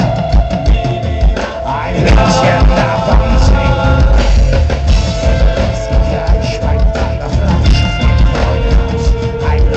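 Folk-metal band playing live over a loud PA: heavy drums and bass guitar with long held melody notes over them, the melody moving to a lower held note near the end.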